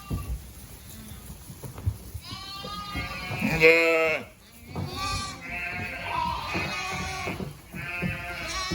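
Lambs bleating, several calls overlapping with a wavering pitch, the loudest about three and a half seconds in.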